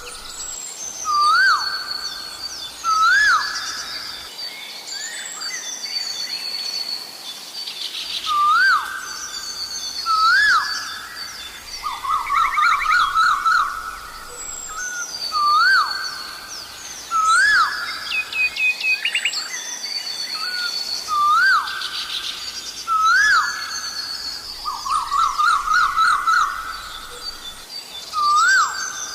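Asian koel calling: loud rising whistled notes repeated every second or two, with fast runs of quick notes in between. Smaller birds chirp and trill at a higher pitch behind it.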